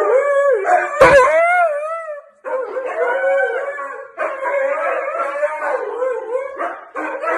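Huskies howling in long, wavering calls that pause briefly a little after two seconds in and again near the end; a single knock about a second in.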